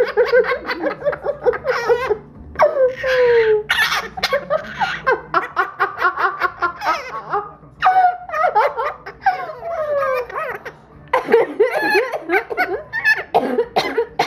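Blue-crowned conure mimicking human laughter in long runs of rapid ha-ha notes broken by short pauses, with a few falling whistled glides among them.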